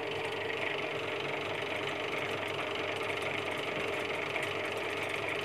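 Homemade coil-winding machine running steadily at low speed: a salvaged washing-machine motor driving a washing-machine gearbox through a small fan belt, turning a speaker voice-coil former. A steady mechanical hum with a few held tones.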